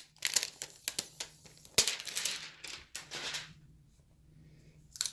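Clear plastic tape being peeled off a new laptop screen panel: crinkling and tearing plastic in several short spells over the first three and a half seconds or so.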